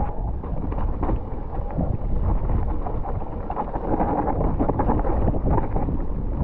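Wind rushing over the microphone of a mountain bike descending a dirt singletrack, with the rumble of the tyres and frequent short rattles and knocks from the bike over the rough trail.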